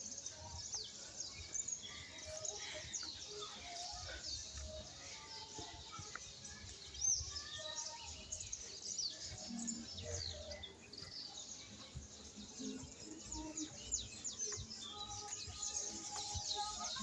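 A chorus of many wild birds chirping and calling at once: a dense stream of short, high chirps and quick falling whistles that never pauses.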